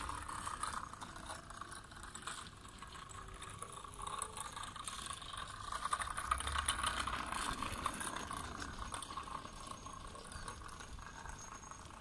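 Homemade hoverboard go-kart rolling over asphalt, its small wheels and frame rattling. It grows louder as it passes close by about halfway through, then fades as it drives away.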